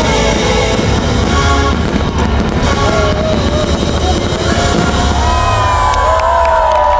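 Loud music, a gliding melody line over a heavy, steady bass.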